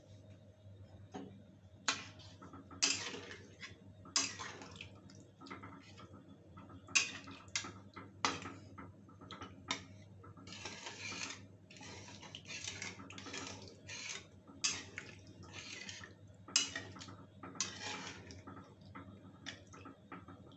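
Spatula stirring a thin curry in a kadhai: irregular scrapes and knocks against the pan with liquid sloshing.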